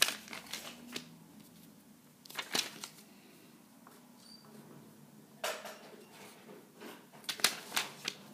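Paper being handled and written on: short bursts of scratching and rustling a few seconds apart.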